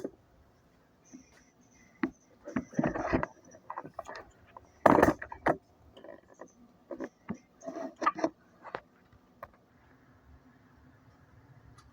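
Irregular knocks, clunks and short clatters of household things being handled, loudest about five seconds in.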